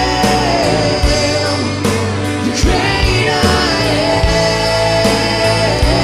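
Live church worship band: several singers on microphones holding long notes over keyboard, electric guitar and a drum kit keeping a steady beat.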